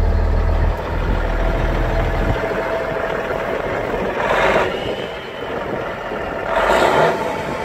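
1999 Peterbilt 378's Cummins N14 Plus inline-six diesel idling, with a deep low rumble that drops away about two and a half seconds in. Two short rushes of noise come near the middle and near the end.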